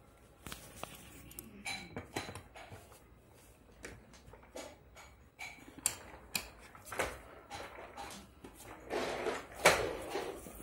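Hard plastic parts of a baby walker knocking and clicking as its push handle is fitted into the body, irregular single knocks with a louder clatter near the end.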